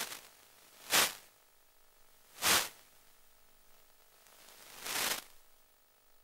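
Four short swells of static hiss: one at the start, one about a second in, one at about two and a half seconds, and a longer one that builds up and cuts off near five seconds. Under them runs a faint steady hum.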